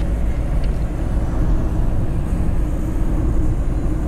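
Car driving at speed, heard from inside the cabin: a steady low rumble of engine and tyre noise.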